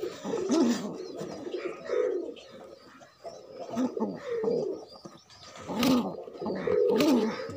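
Domestic pigeons cooing: a run of low, rolling coos repeated every second or two.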